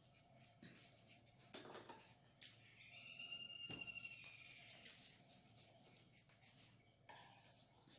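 Faint crunches of a kitchen knife slicing a raw carrot, a few soft cuts spread out, with a brief high squeak about three seconds in.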